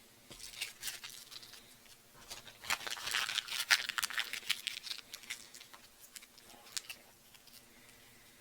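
Snack packaging being handled: a run of crinkling, rustling and small clicks, busiest and loudest in the middle, dying down near the end.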